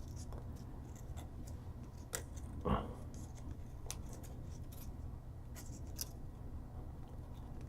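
Origami paper being folded and creased by hand: faint crinkles and crisp ticks of the sheet, with one louder rustle between two and three seconds in.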